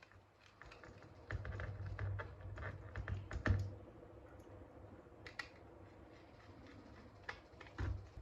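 Small plastic-and-metal clicks and knocks of a 2.5-inch laptop hard disk being fitted into an optical-bay drive caddy: a quick run of clicks over about two seconds, then a few single clicks.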